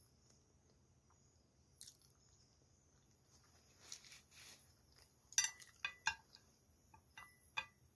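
Soft chewing of a mouthful of pasta, then a run of sharp clicks from about halfway as wooden chopsticks tap the plate and each other while picking up penne.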